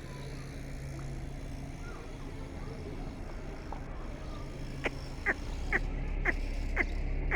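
Cranes giving a run of short, sharp calls, about two a second, starting about five seconds in, over a steady low hum.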